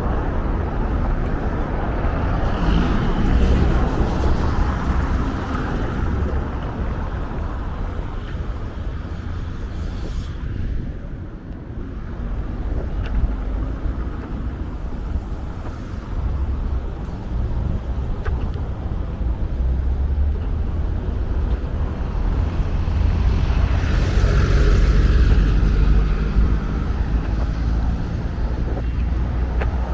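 Road traffic on a city street: a steady rumble of cars going by, swelling as vehicles pass close, loudest about twenty-five seconds in.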